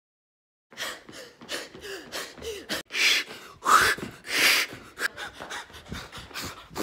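People gasping and panting hard right at a phone's microphone, with breathy huffs and a short rising cry in the middle. The sounds start about a second in.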